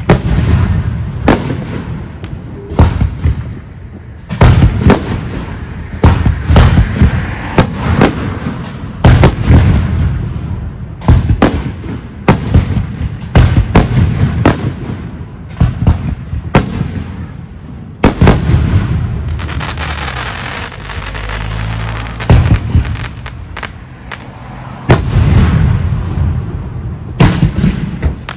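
Professional fireworks display: aerial shells bursting one after another with loud sharp bangs, some in quick clusters, with a rumble and crackle filling the gaps.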